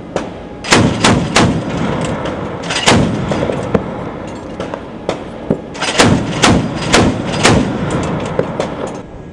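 Shipboard .50 caliber machine gun firing shots out over open sea, each a loud crack with a rolling tail. Three shots come close together early on, one follows near three seconds, and four more come about half a second apart from about six seconds in.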